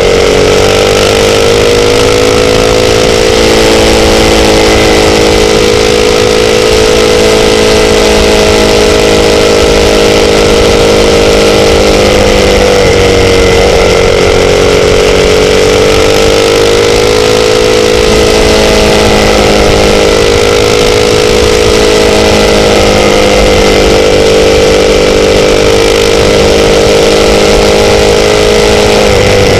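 Motorcycle engine running loud and steady at cruising speed over a steady hiss, its pitch dipping and climbing back gently a few times, about halfway through and again near the end, as the throttle eases off and comes back on.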